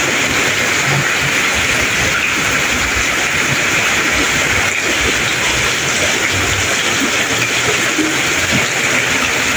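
Very heavy tropical rain pouring down steadily, an even, unbroken hiss of the downpour.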